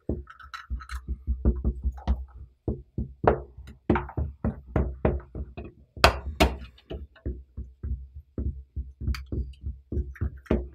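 A wooden spoon handle knocking repeatedly against a glass mixing bowl, about three knocks a second, as shortening is cut into flour by hand. Two sharper clicks come about six seconds in.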